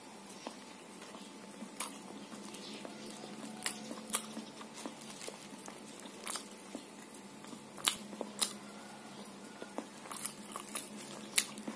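Close-up eating of a soft coconut-and-palm-sugar filled snack: quiet chewing with scattered short mouth clicks and smacks. A faint steady hum runs underneath.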